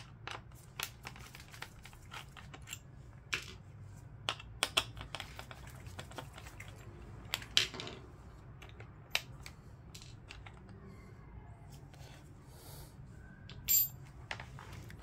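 Parts of an opened computer keyboard, its rubber dome sheet and keys, being handled and set down: irregular small plastic clicks and taps. A louder click near the end has a brief ring.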